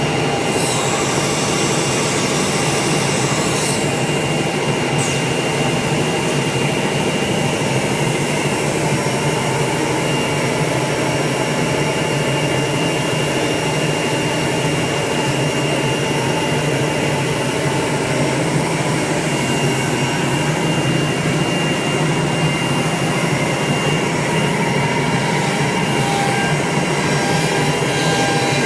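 An automatic-tool-change CNC router running as it machines wood: a constant rushing noise with a steady high spindle whine. A harsher hiss sits over it for the first few seconds.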